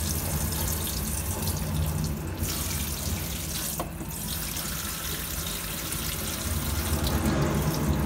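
Tap water running steadily into a stainless steel sink, splashing onto a plastic cup by the drain and over a child's hand held in the stream.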